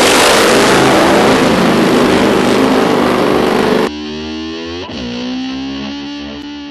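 Distorted electric guitar: a loud, dense wash of noise that cuts off abruptly about four seconds in, then held notes that swoop down and back up in pitch about a second later before settling into one sustained tone.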